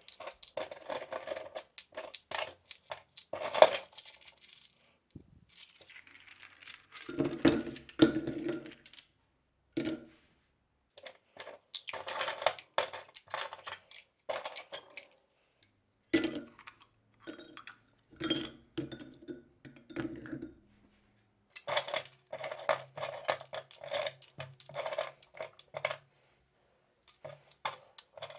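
Pieces of corroded, dug-up brass scrap, plates, fragments and threaded fittings, clinking and clattering against each other as they are picked up by the handful. The clinks come in bursts with short pauses between.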